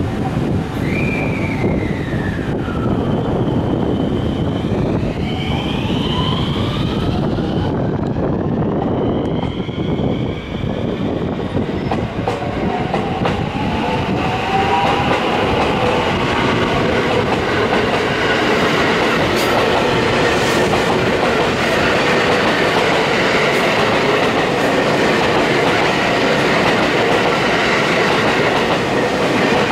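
A JR West Special Rapid Service electric train pulling out of the station. Its traction motors whine in rising and falling glides as it gathers speed over the first ten seconds or so. After that the cars roll past with steady wheel-on-rail noise and a clickety-clack over the rail joints.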